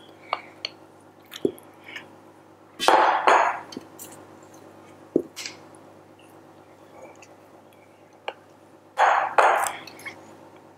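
Silicone spatula working mascarpone cream into a stainless-steel dish: light clicks and taps against the dish and bowl, with two louder scraping, squelching strokes about three seconds in and again near the end.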